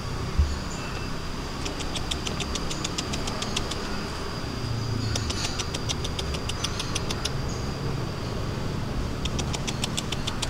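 Outdoor background: a steady low rumble with a faint high steady tone, and a rapid high clicking trill of about seven pulses a second that comes three times, each run lasting about two seconds.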